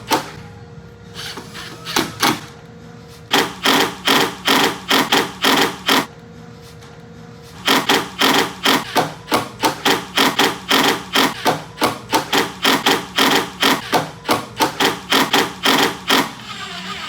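Rapid, regular knocking, about three knocks a second, in runs broken by short pauses, from fastening the subwoofers into the wooden enclosure with screws.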